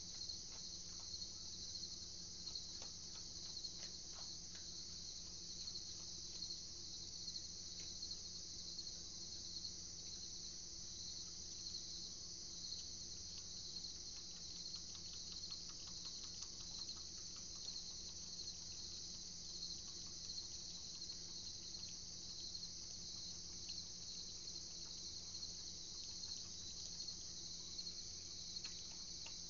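Crickets chirping in a steady, fast, high-pitched night chorus, with a few faint clicks in the first seconds.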